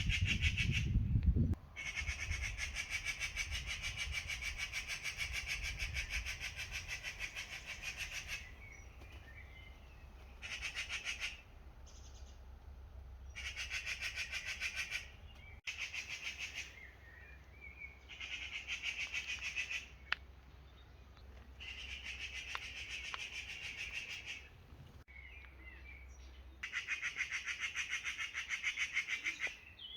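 A shrill, rapidly pulsing trill from an unseen forest animal, repeating in bursts of one to several seconds with short pauses between them, a few faint chirps in the gaps.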